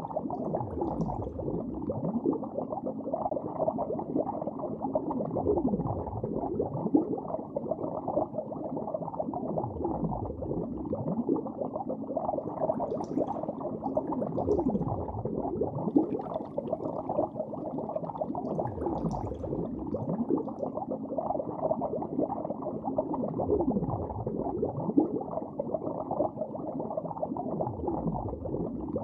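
Muffled underwater-style ambience: a steady bubbling rumble with slow swooping tones that sweep down and back up every four to five seconds.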